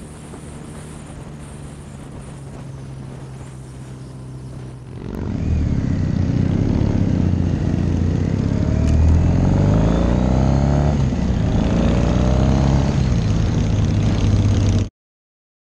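Cruiser motorcycle engines running at highway speed with wind rush. About five seconds in the sound becomes much louder, with several engines whose pitches rise and fall, and it cuts off suddenly near the end.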